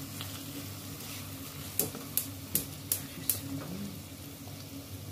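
Meat and onion frying and sizzling in a nonstick pan as a silicone spatula stirs them, with about five sharp clicks of the spatula against the pan between about two and three and a half seconds in. A steady low hum runs underneath.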